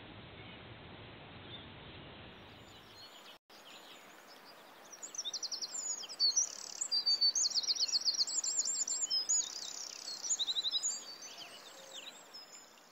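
Small songbirds singing in quick high chirps and rapid repeated trills, loudest in the middle stretch and fading near the end. Before them, a faint steady hiss cuts off abruptly about three and a half seconds in.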